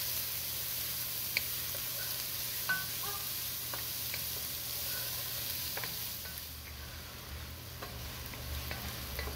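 Chopped onions sizzling in hot oil, stirred with a spatula that clicks and scrapes against the pan now and then; the sizzle eases a little after the middle.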